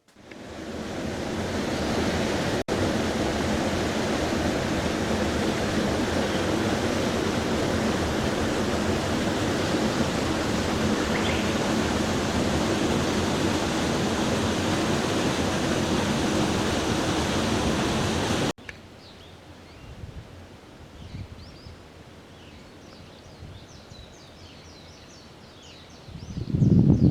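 A loud, steady rushing noise, like running water or wind, fades in and then cuts off abruptly. After it comes a much quieter outdoor ambience with many small birds chirping. Near the end a louder rustling starts.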